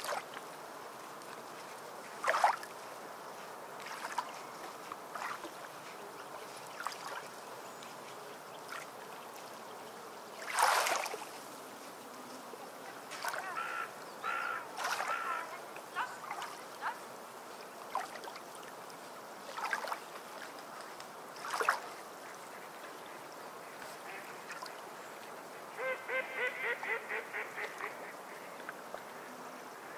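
Bird calls over a steady low hiss: a few short calls, then near the end a quick run of about ten calls, roughly four a second. Short scrapes and rustles are scattered between, the loudest about a third of the way in.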